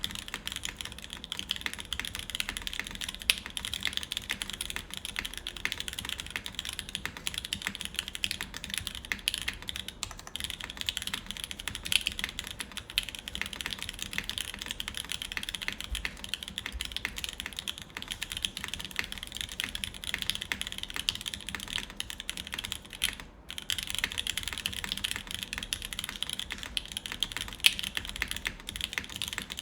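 Continuous typing on a Tsukuyomi custom mechanical keyboard with lubed Alpaca linear switches, GMK doubleshot ABS keycaps and a full aluminium plate: a dense, rapid stream of keystrokes with one brief pause about 23 seconds in.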